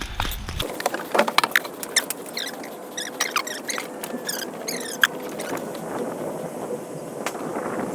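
Airsoft skirmish: scattered sharp cracks and clicks of airsoft guns firing and BBs striking, mixed with short high squeaky chirps.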